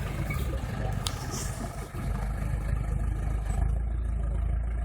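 Off-road vehicle engine running steadily with a deep, low-pitched sound, and one sharp click about a second in.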